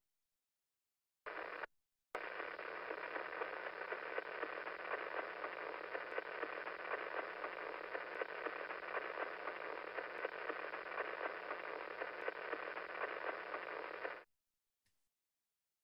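Radio signal of the pulsar PSR B0950+08 turned into sound and played over a video call: a steady hiss of static with faint repeated ticks and a thin hum underneath. It is cut off suddenly near the end.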